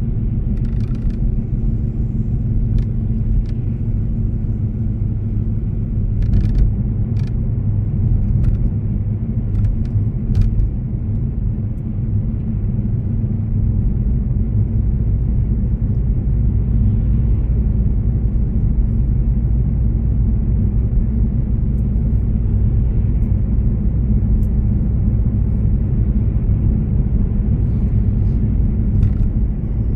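Road vehicle driving along, a steady low rumble of engine and road noise with a few sharp clicks in the first part. The deepest hum shifts about halfway through.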